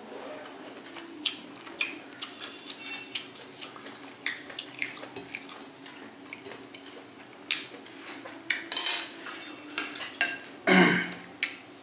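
Crockery and cutlery clinks at the table: fingers working rice on a ceramic plate, then a metal spoon knocking against a ceramic curry bowl, with scattered sharp clicks that grow busier toward the end and the loudest clatter about a second before it ends.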